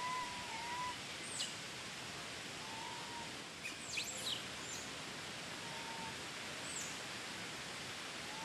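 Outdoor ambience: a steady hiss with several short arched calls and a few quick high chirps that sweep downward.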